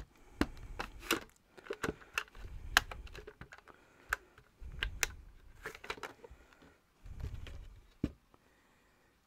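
Irregular sharp plastic clicks and knocks from handling the main body of a Dyson V10 Animal cordless vacuum, with a few short, dull low thumps in between.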